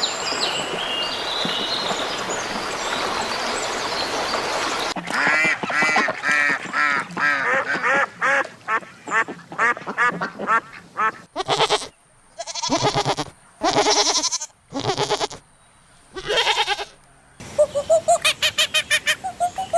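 Domestic ducks quacking: a noisy flock din for the first few seconds, then quick runs of quacks, then a handful of separate, longer calls with short silences between them, and rapid quacking again near the end.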